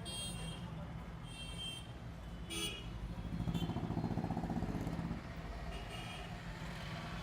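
Motor vehicle engine running with a steady low hum, swelling louder for about two seconds in the middle, with a few short high tones over it.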